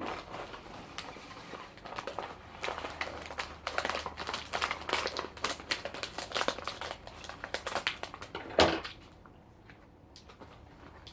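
Plastic snack bag of Oishi spicy-shrimp crisps crinkling and crackling as it is handled and opened, in dense irregular bursts. A single louder thump about eight and a half seconds in.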